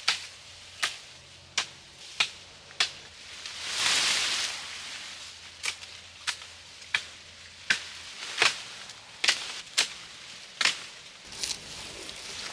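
A run of sharp chopping blows into wood, roughly one every two-thirds of a second, as branches are cut in brush. About four seconds in, the chopping pauses for a second-long rustle of leaves and branches.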